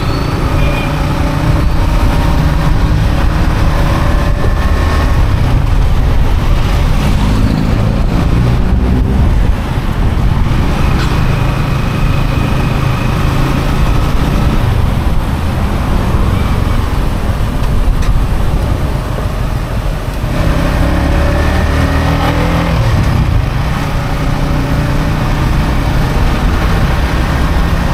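Yamaha XSR 155's single-cylinder engine running under way, its pitch rising several times as it accelerates through the gears, with a brief drop in level about twenty seconds in. Road and passing-traffic noise run underneath.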